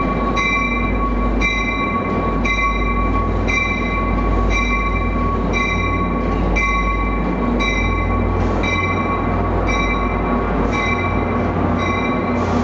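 New Jersey Transit train with an EMD GP40PH-2B diesel locomotive, running loudly with a steady low drone and a steady high whine. Over it a high ringing sound repeats about three times every two seconds.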